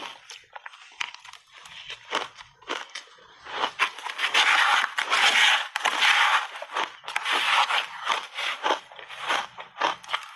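Crunchy shaved ice being bitten and chewed and scraped by a metal spoon in the bowl: a dense run of quick crackles and crunches, loudest for a few seconds in the middle.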